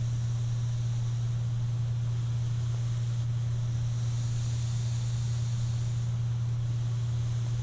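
Steady hum and airy hiss of a CPAP machine blowing air through its mask. The hiss grows a little louder about halfway through.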